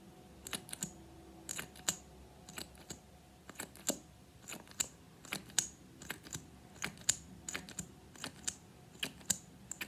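An Essence Extreme Shine lip gloss tube being pumped: the applicator wand pulled out and pushed back in over and over, making short sharp clicks and pops about two or three times a second in irregular little clusters.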